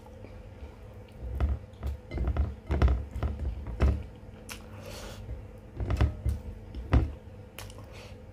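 Eating at a table: a run of soft thumps and taps against the plate and tabletop, in clusters through the first half and again twice near the end, over a faint steady hum.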